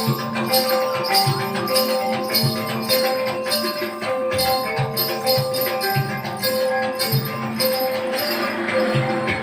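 Gamelan dance music: pitched metallophone notes repeating over a low drum beat at about two strokes a second, with steady metallic jingling on top.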